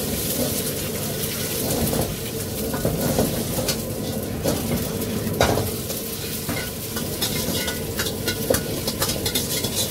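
Chicken fried rice sizzling in a wok as a metal spatula stirs and tosses it, with frequent sharp clicks and scrapes of metal on the pan; the sharpest knock comes about halfway through. A faint steady hum runs underneath.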